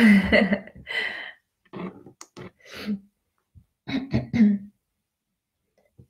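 A woman's voice: the end of a bright greeting, then several short wordless vocal sounds and throat noises with a few small clicks, stopping about five seconds in.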